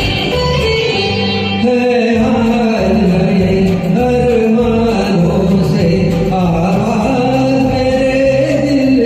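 Karaoke backing track of a Hindi film song with a steady beat, under a sung melody that comes in about two seconds in.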